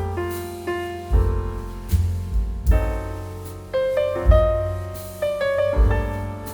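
Background piano music: a melody of struck notes over low bass notes.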